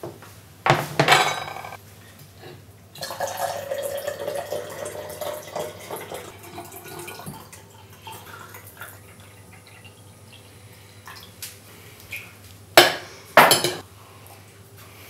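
A plate is set down on the table with a sharp knock, then water is poured from a glass jug into a drinking glass for a few seconds. Near the end, a metal spoon knocks and scrapes on the plate twice.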